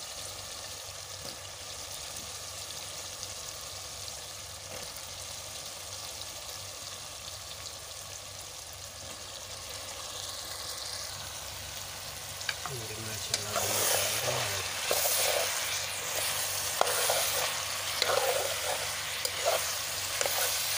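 Chopped okra in a pan of onion-tomato masala, sizzling steadily over the heat. In the last third a metal spoon stirs it, and the sizzle grows louder, with scraping and sharp clicks of the spoon against the pan.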